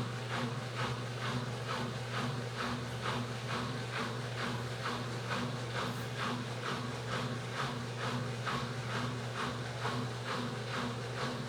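Midea 12 kg washing machine running: a steady motor hum with a regular swishing beat about three times a second.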